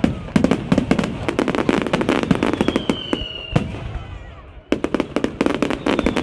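Fireworks display: rapid volleys of sharp bangs and crackle from bursting shells, with a falling whistle twice. The bangs thin out briefly a little past the middle, then a fresh volley starts.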